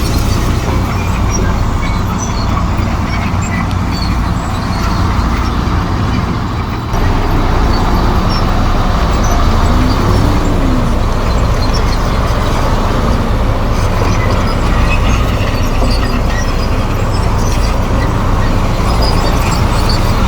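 Komatsu D58E crawler bulldozer's diesel engine running steadily under work, with track and machinery noise; it gets louder suddenly about seven seconds in.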